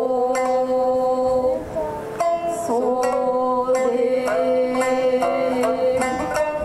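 Kabuki accompaniment: a shamisen plucked in sharp strokes under a singer's long held notes, with a brief lull about two seconds in.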